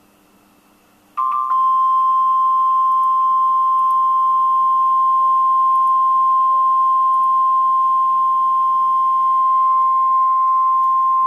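NOAA Weather Radio warning alarm tone: one steady, loud, high-pitched tone near 1,050 Hz that starts about a second in and holds for about ten seconds. It signals that a warning message follows.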